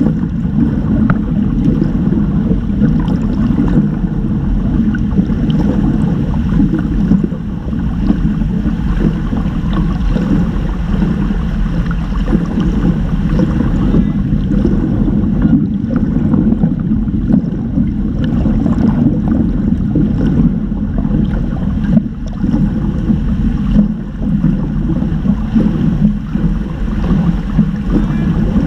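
Muffled water noise heard through a submerged camera in a swimming pool: a steady low rumble and churning from swimmers kicking and splashing past.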